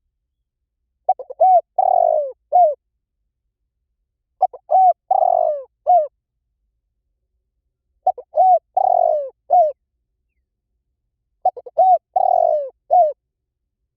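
Spotted dove calling: four repeated cooing phrases about every three and a half seconds. Each phrase is a couple of short coos, a longer falling coo and a short closing coo.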